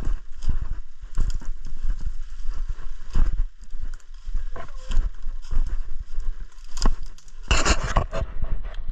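Irregular low thumps with rustling, like footsteps through undergrowth and handling noise on the microphone, with a louder rustle about seven and a half seconds in.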